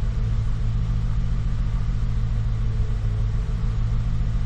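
2014 Ford F-150's V8 engine idling steadily on its own, with a misfire the owner says he can feel: an ongoing idle and misfire fault that new coils, plugs and a new PCM have not cured.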